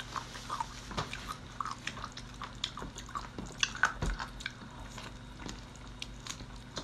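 Close-miked wet eating sounds: lips and teeth working on a piece of sauce-coated cooked seafood, a string of small sticky clicks, smacks and drips, with a firmer bite about four seconds in.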